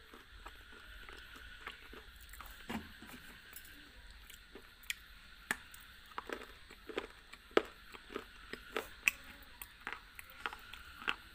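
Close-miked crunching as a hard block is bitten and chewed: an isolated crunch a few seconds in, then sharp crunches about every half second through the second half, over a faint steady hiss.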